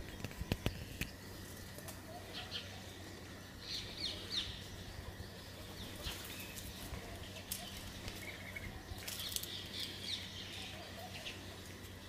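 Outdoor ambience with small birds chirping now and then, over a low steady hum, and a few sharp clicks in the first second.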